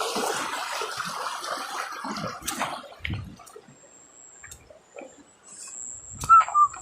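Baitcasting reel's spool whirring as line pays out on a cast, fading and stopping with a sharp click about two and a half seconds in. Faint ticks and water sounds follow, with a few short chirps near the end.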